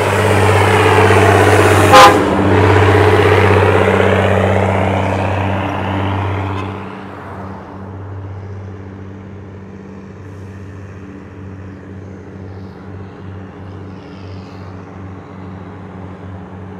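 Heavy loaded truck's diesel engine labouring up a steep grade as it passes close, loud and steady for about seven seconds, with one brief sharp bang about two seconds in. It then drops to a quieter low engine drone.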